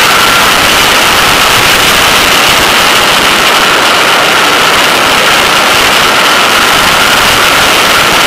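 Porsche 911 at speed on a track, heard from a camera on its rear wing: loud, steady wind rush over the microphone, with a faint steady tone running through it.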